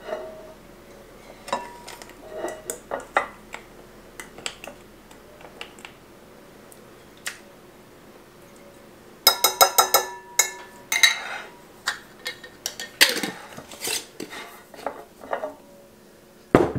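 Metal measuring cup clinking and scraping against a glass jar and a mixing bowl as brown sugar is scooped and tipped in. Scattered light clinks give way to a quick run of sharp, ringing taps about nine seconds in, and a single knock near the end.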